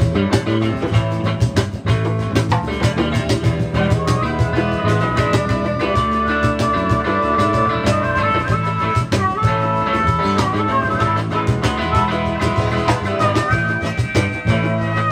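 Live blues-rock band with guitar and drum kit, and a harmonica playing held, wavering melody notes over the band.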